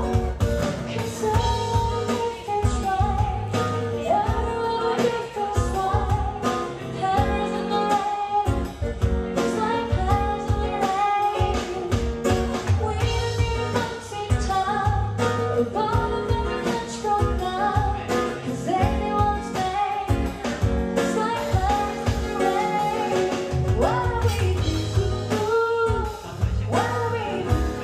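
Music: a woman singing a pop song over guitar and band accompaniment.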